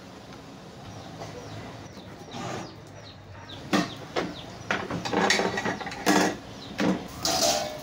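Metal clattering: a run of sharp clanks and scrapes from about halfway in, several knocks a second, the loudest near the end.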